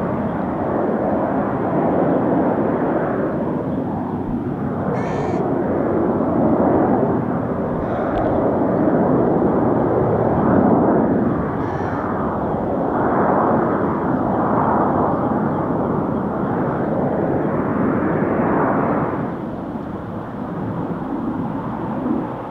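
Formation of BAE Hawk T1 jet trainers flying a display, a loud jet roar that swells and fades as they manoeuvre and falls away somewhat near the end.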